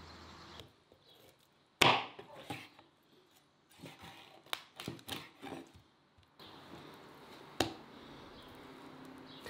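Kitchen knife cutting up a raw chicken on a wooden cutting board: one loud chop of the blade striking the board about two seconds in, a run of lighter cuts and knocks after it, and another sharp chop near the end.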